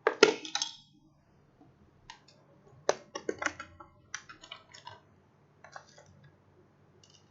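Sharp clicks and light clatter of small hard parts being handled on an electronics repair bench, coming in several quick clusters with the loudest right at the start.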